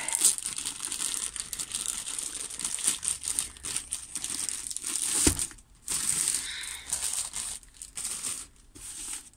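Packaging crinkling and rustling as a diamond painting kit is opened by hand, with a brief knock a little over five seconds in.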